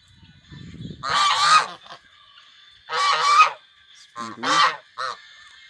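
Domestic geese honking: three loud honks about a second and a half apart, then a short call near the end.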